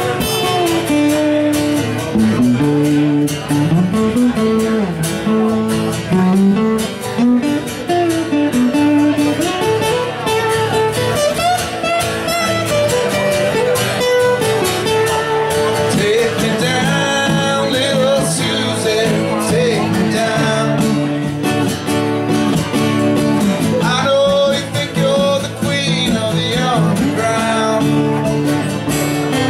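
Two acoustic guitars playing live, strummed chords under a picked melodic line, in a jam-band style.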